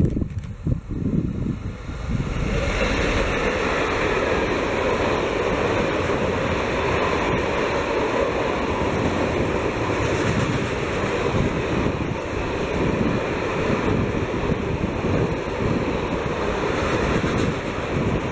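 A diesel freight locomotive comes up and passes, then a long string of grain hopper wagons rolls by close, a steady rumble and rush of wheels on rail that swells about two seconds in. Wind buffets the microphone.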